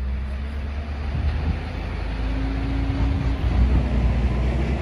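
Diesel engine of a heavy truck carrying a huge boulder, running under load with a low, steady rumble.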